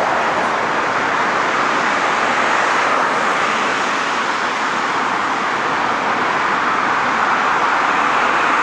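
Steady road traffic noise of vehicles driving past, swelling slightly about three seconds in, cut off suddenly at the end.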